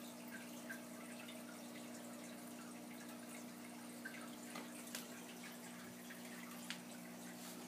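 Aquarium sponge filter bubbling faintly, its air bubbles breaking at the water surface with scattered small pops and drips, over a steady low hum.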